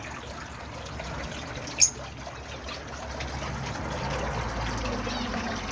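Steady trickling water, with a single short, sharp, high-pitched sound about two seconds in.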